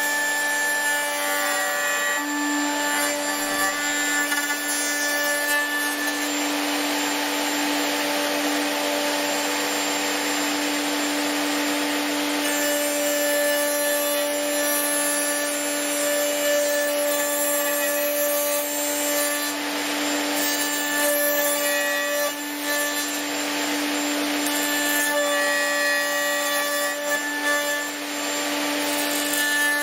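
Electric router with a 12 mm flush-trim bit cutting finger-joint slots in 18 mm wood: a steady motor whine with the noise of the cut running along under it.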